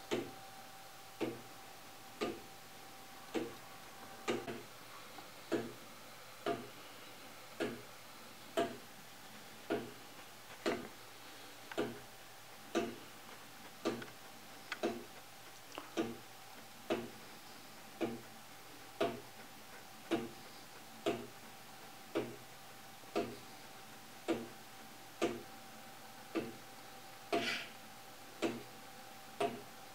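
Clayton Boyer Swingtime wooden gear clock ticking steadily, about one tick a second, as its wooden escapement beats with the swinging pendulum frame.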